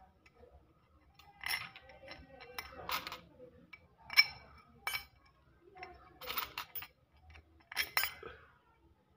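Steel motorcycle spokes clinking against the drum hub and against each other as they are pushed one at a time through the holes of the hub flange: a series of separate, irregularly spaced metallic clinks.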